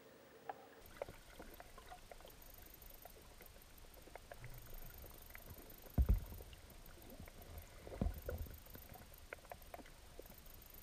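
Underwater ambience picked up through a camera's waterproof housing: a low hiss with scattered faint clicks, and two dull low thumps about six and eight seconds in.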